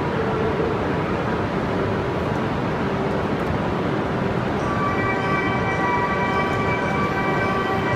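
Steady hum of an E5 series Shinkansen standing at the platform with its doors open. About five seconds in, the platform's departure melody starts playing, a tune of clear steady notes signalling that the train is about to leave.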